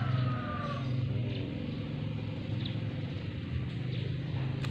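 A steady low engine-like drone, with a hoe chopping and scraping in loose soil as sweet potatoes are dug.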